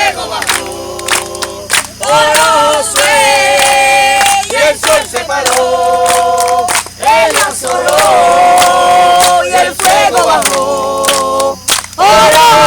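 A group of people singing together, long held notes in short phrases with brief breaks between them.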